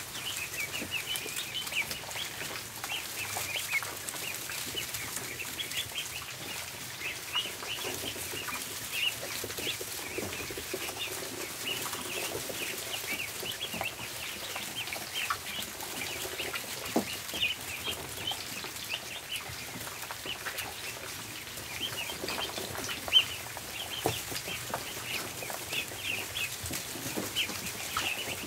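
Many ducklings peeping at once: a steady chorus of short, high, overlapping peeps, with scattered small taps and clicks and one sharper tap about two-thirds of the way through.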